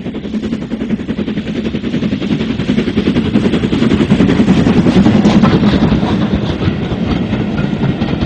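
A train running past with a fast, even rattle, growing louder to a peak about halfway through and then easing off a little.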